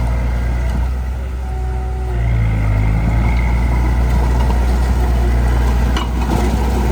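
Heavy diesel engine of earthmoving equipment running steadily, dipping briefly and then picking up slightly in pitch and load about two seconds in. A short sharp click comes near the end.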